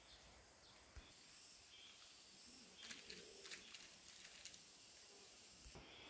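Near silence: faint outdoor ambience, with a single click about a second in and a short stretch of faint rattling clicks about halfway through.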